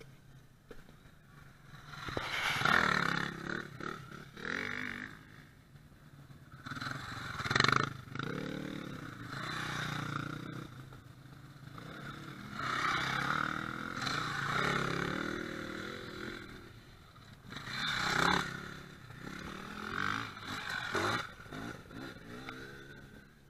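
Enduro dirt-bike engines revving and passing close by, one bike after another. Each pass rises to a peak and falls away, with several passes in all.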